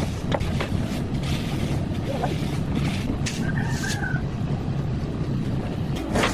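An engine running steadily, with a few light knocks.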